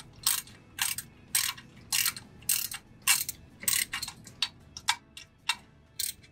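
Ratchet wrench clicking in short runs, nearly two a second, as the handle is swung back and forth to run down the bolts fastening a worm gearbox onto a valve.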